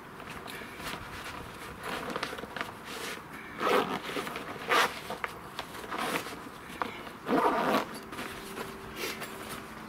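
Zip on a nylon stuff sack being pulled shut in several short, loud strokes between about three and eight seconds in, over rustling of the fabric as the packed camping chair is pressed into the bag.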